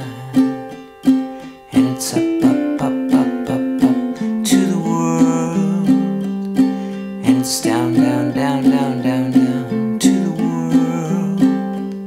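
Background music: a wordless passage of a pop song, plucked strings strummed to a steady beat.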